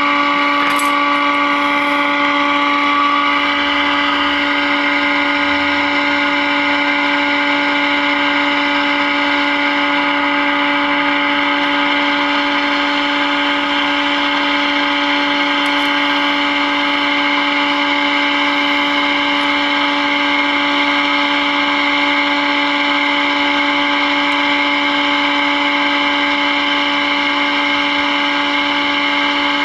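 Tube radio's loudspeaker giving out the signal generator's steady buzzing test tone, with hiss behind it. This is the modulated 456 kc IF test signal coming through the set while its IF transformer slugs are peaked for maximum during alignment.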